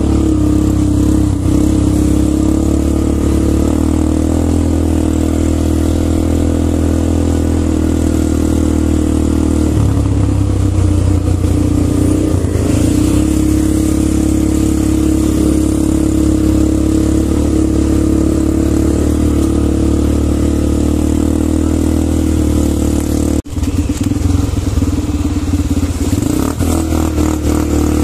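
Quad bike (ATV) engines running at low speed. The engine note shifts and wavers about ten seconds in, and the sound cuts out for an instant about three-quarters of the way through.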